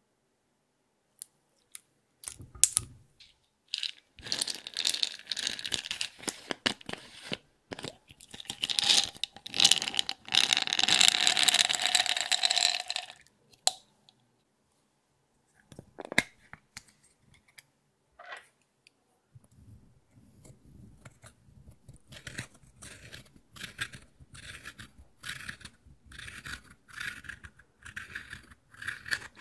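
Makeup being tipped into a glass dish and crushed: a few seconds of dense, steady pouring noise as small powder beads and sequins spill onto the glass. Then, from about twenty seconds in, quick repeated scraping crunches as pressed powder in a plastic compact is broken up with a plastic tool.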